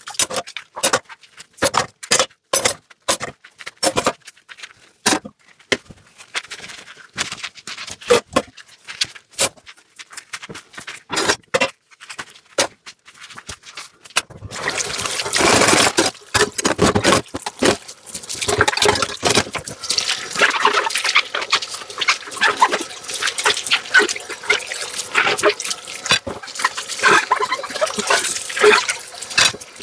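Dishes and utensils being handled and scrubbed in a sink: a string of sharp clinks and knocks. About halfway through, a tap starts running and water pours over the dishes while they keep clattering.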